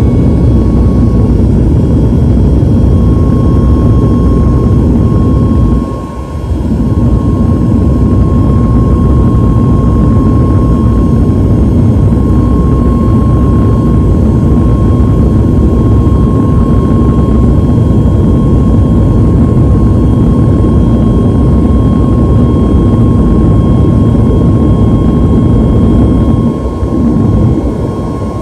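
Jet airliner cabin noise in the climb after takeoff: a loud, steady rumble of engines and airflow with a thin steady whine above it. It dips briefly about six seconds in and again near the end.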